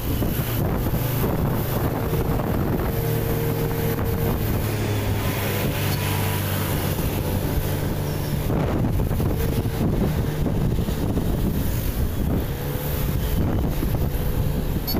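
Wind rushing over the microphone of a moving vehicle, with its small engine humming steadily underneath.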